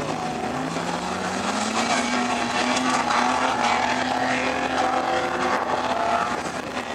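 4x4 vehicle's engine revving up, its pitch climbing over the first two seconds, then held steady at high revs.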